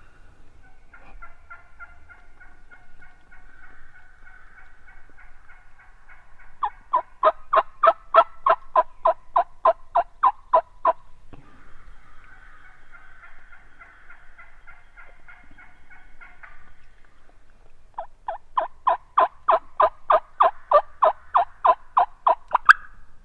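Turkey yelping: two long runs of about seventeen evenly spaced yelps, roughly four a second, dropping slightly in pitch through each run. Each run is preceded by a few seconds of a softer, raspy, drawn-out sound.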